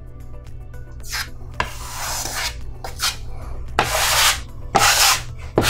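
Drywall knife scraping over the wall in about five quick strokes, starting about a second in, wiping excess joint compound off freshly filled screw holes.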